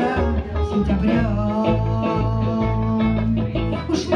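Live band music: electric guitar and bass guitar playing, with a long held melody note over them from about a second in until near the end. A sharp hit comes at the very end.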